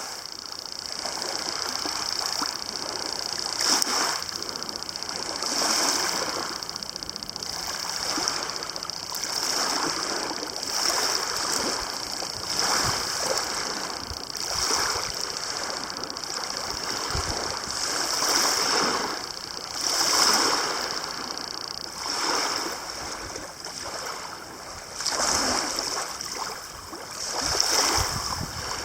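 Lake water lapping and splashing against the shore, swelling about every two seconds as small waves come in.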